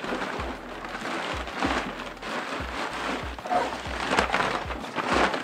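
Brown kraft packing paper rustling and crinkling as it is pulled and pushed aside, over a hip hop beat with a steady kick drum.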